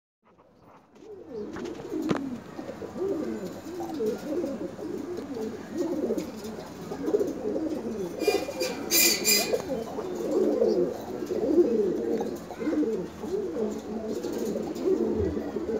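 Satinette pigeons cooing almost without pause, several low coos overlapping one another.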